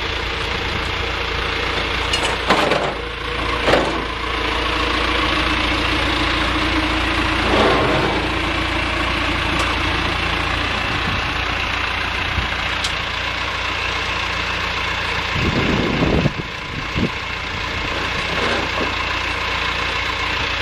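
An engine idling steadily, with a few short knocks over it and a longer noisy burst about three quarters of the way through.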